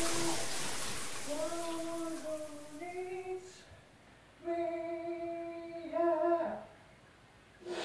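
Running water fading out over the first two seconds or so, then a voice humming a slow tune of held notes in two short phrases, with one brief note near the end.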